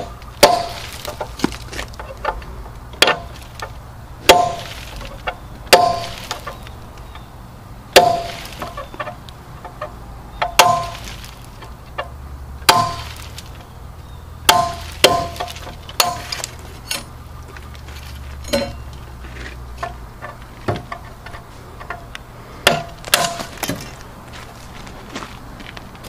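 Ball-peen hammer striking a steel punch held against corroded bolts on a radiator tank's angle-iron flange, driving the rusted bolts out. About twenty sharp metallic strikes come at irregular intervals, one every second or so, some in quick pairs, each with a brief ring.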